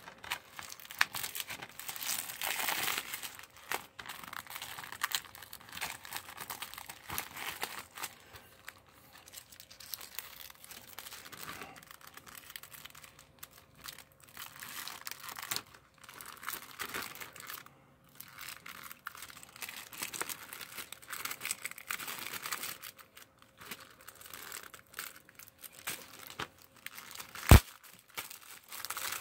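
Plastic shrink wrap being picked at, torn and crinkled off a DVD case by hand, in irregular bursts of crackling. A single sharp click near the end.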